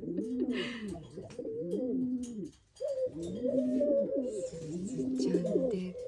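Feral pigeon cooing over and over, angry scolding coos aimed at another pigeon, with a short break about two and a half seconds in.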